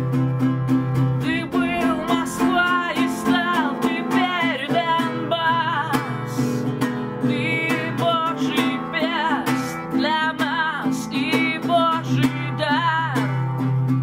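A woman singing in a full voice while accompanying herself on a nylon-string classical guitar, the sung line wavering and sliding over a steady, pulsing guitar accompaniment.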